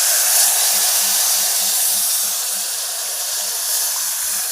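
Tamarind water hitting the hot sesame-oil tempering in the pan and sizzling hard, a steady loud hiss that eases slightly toward the end.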